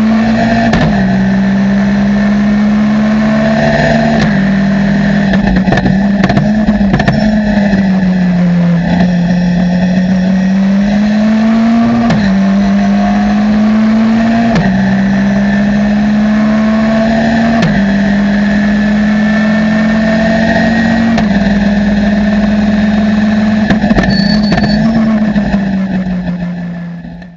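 Ginetta GT5 Challenge race car's engine heard from inside the cockpit, running hard at high revs. The pitch climbs and drops several times as the revs change through the lap. It fades out near the end.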